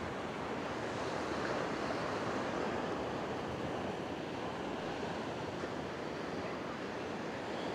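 Ocean surf breaking and washing up a sandy beach, a steady rush of noise.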